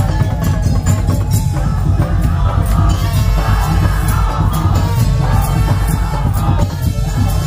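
Madurese musik tong-tong percussion ensemble playing: heavy, dense drumming with rapid wooden strikes and a melodic line over it.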